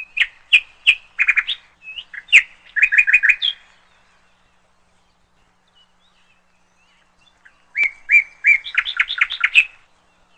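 Small bird chirping in rapid strings of sharp, high notes, two bouts with a pause of a few seconds between.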